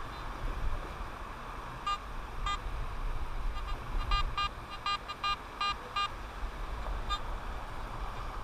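Handheld Garrett pinpointer beeping in short electronic chirps about ten times, quickening in the middle as it closes on a buried target in the sand, over steady wind and surf noise on the microphone.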